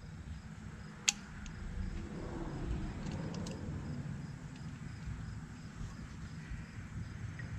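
A sharp click about a second in as a crimped plug is pulled off the end of a tractor's transmission oil cooler hose, then a low steady rumble with a few faint ticks while the hose is held over the gravel.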